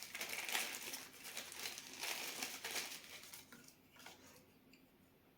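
Packaging crinkling and rustling as an accessory is handled and unwrapped; it dies away about three seconds in.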